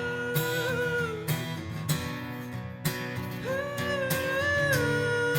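Live acoustic song: acoustic guitar strumming under a voice holding long notes, one ending about a second in and another starting past the middle.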